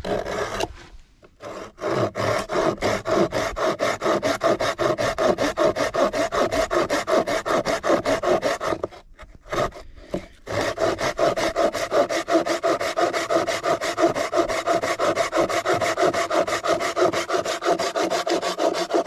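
Small hand saw cutting back and forth across a bark-covered log in rapid, even rasping strokes, sawing about halfway through to start a notch. The sawing stops briefly about a second in and again for a moment around the middle.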